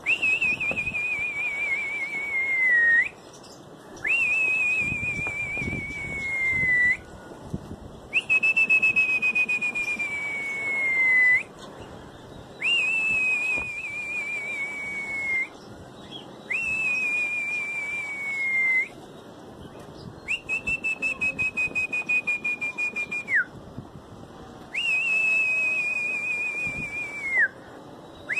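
A series of seven long, high whistles, each held about three seconds with a wavering pitch that sags slightly toward the end, repeated every four seconds or so.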